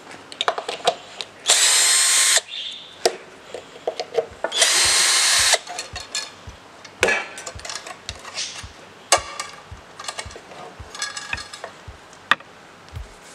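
Cordless drill-driver running in two short bursts of about a second each, turning the screws of the metal strap that holds an angle grinder to a wooden board. Between and after the bursts come scattered clicks and knocks of the tools being handled on the wooden bench.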